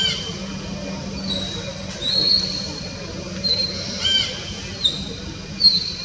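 A series of short, high-pitched chirping and squeaking animal calls, one every second or so, over a steady low hum.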